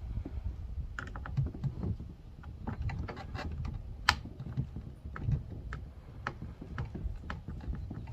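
Irregular light clicks and taps of a screwdriver and loose screws on a plastic car armrest being taken apart, with one sharper click about four seconds in, over a low steady rumble.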